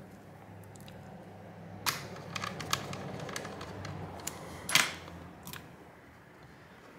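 Small clicks and taps of plastic and tools as the mini PC's plastic case is handled and closed up, with a sharper knock about five seconds in, over a faint low hum.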